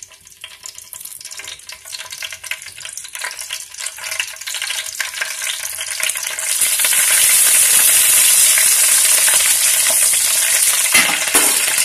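Curry leaves frying in hot oil in a metal kadai: crackling and spattering that grows steadily louder, then turns to a loud, steady sizzle about six and a half seconds in.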